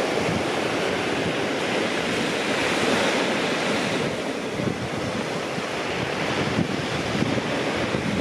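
Surf breaking and washing over a steep shingle beach, a steady rushing noise, with wind buffeting the microphone in a gusty low rumble.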